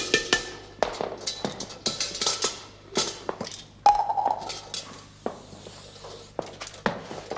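Irregular run of sharp knocks and clinks, about three or four a second, some ringing briefly, with a short held tone about four seconds in.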